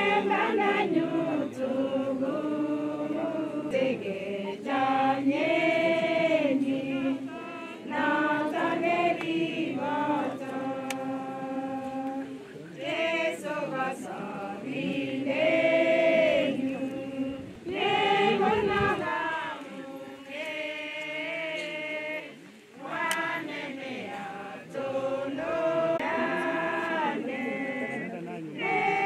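A group of mourners singing a hymn together, in long held phrases with short breaks between them.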